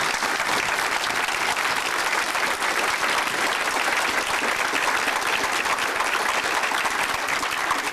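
A large seated audience applauding steadily, many hands clapping at once.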